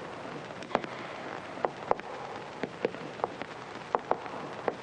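Slow footsteps of a small group walking on a hard floor, the steps coming in close pairs about every two-thirds of a second. Under them runs the steady hiss of an old film soundtrack.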